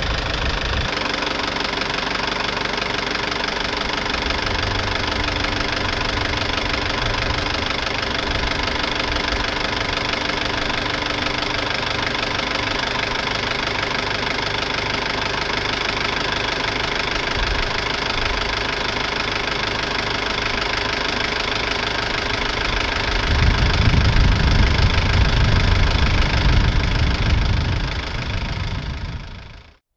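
Mitsubishi J53's 4DR6 four-cylinder direct-injected turbo diesel idling steadily. For several seconds near the end the sound grows louder, with a heavier low rumble, then cuts off suddenly.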